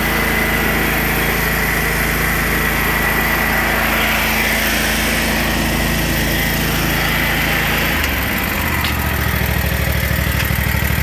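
Engine of a Canycom SC75 tracked concrete buggy running steadily; about eight seconds in its note drops and it settles into a lower, evenly pulsing idle.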